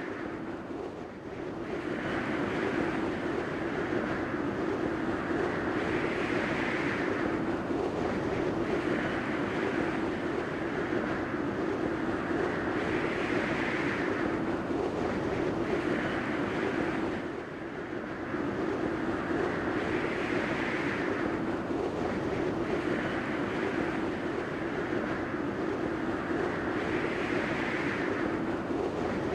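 Steady rushing noise over a low hum, swelling brighter every few seconds, with a short dip a little past halfway: the KineMaster "Blurred" sound effect.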